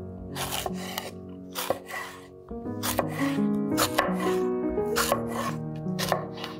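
Kitchen knife slicing a red chili pepper into rings on a wooden cutting board: short crisp cuts, about two a second, each ending on the board. Background music plays along.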